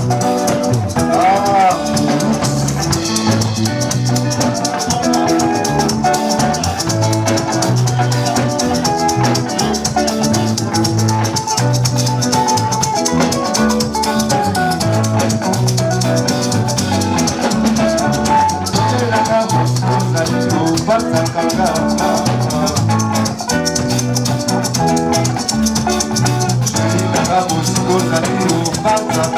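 Live band playing an upbeat number: electric guitars picking melodic lines over a steadily repeating bass figure and drums.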